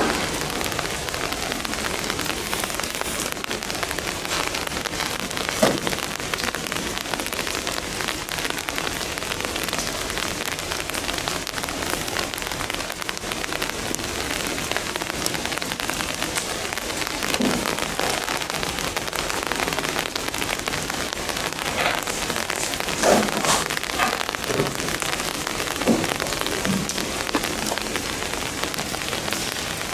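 Steady rain falling on hard surfaces, with scattered louder taps and drips, several of them in the last third.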